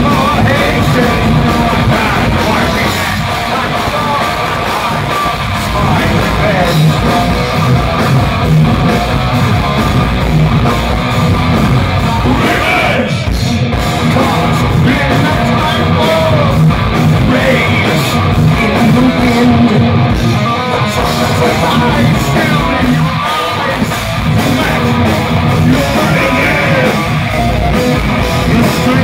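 Heavy metal band playing live: distorted electric guitars, drums and a singer, loud and continuous, heard from within the audience.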